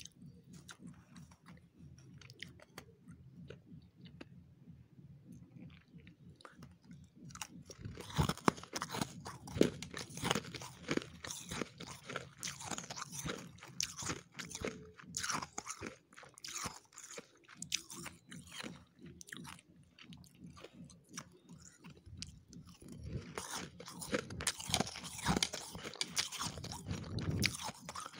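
Dry freezer frost being chewed close to the microphone: crisp, dense crunching. It is faint at first and turns loud about eight seconds in, going on with short pauses.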